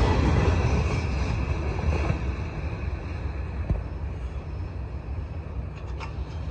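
Freight train boxcars rolling away on the rails, a low rumble with wheel noise that fades steadily as the tail end recedes.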